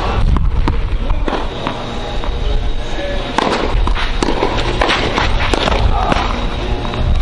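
Tennis balls struck by rackets and bouncing on a clay court: sharp pops at irregular intervals, several a second at times, over a steady low rumble.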